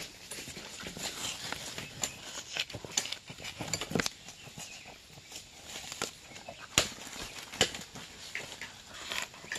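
Uneven footsteps on a rough path, roughly one a second, with a few sharper knocks about four seconds in and again near seven seconds.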